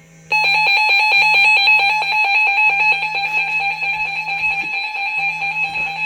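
Emergency Alert System attention signal: a loud, harsh electronic alarm tone that cuts in abruptly about a third of a second in and holds steady. It marks the start of a new emergency alert, following the digital header bursts.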